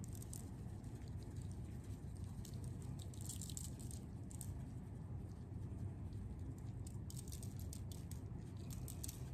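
Black pepper shaken from a shaker onto raw fish fillets on aluminium foil: faint, scattered pattering of grains and light rattles of the shaker, over a low steady hum.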